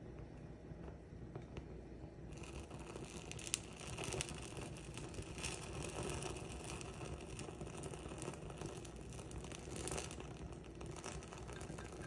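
Paper burning in a small bowl: a soft crackle and hiss of flame that grows livelier about two seconds in, with a few faint clicks.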